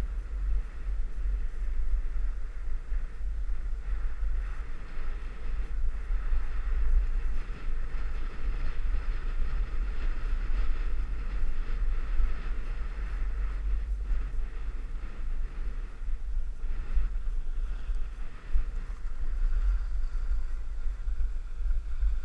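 Wind buffeting the microphone of a camera moving downhill on snow: a heavy low rumble that rises and falls, over a steady hiss of sliding on snow.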